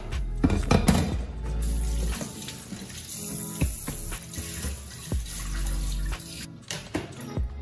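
Tap water running from a flexible spray nozzle into a stainless steel sink, rinsing a plate and then fish. A few sharp knocks sound in the first second.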